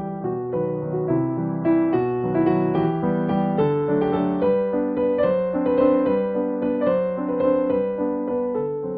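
Background music: a gentle piano melody over chords, in a steady flow of notes.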